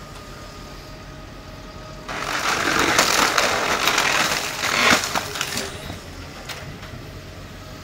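Woodcracker hydraulic splitting head on a Cat M313C wheeled excavator crushing and splitting a log. About two seconds in, a loud crackling and splintering of tearing wood starts and lasts about three and a half seconds, over the steady hum of the excavator's diesel engine.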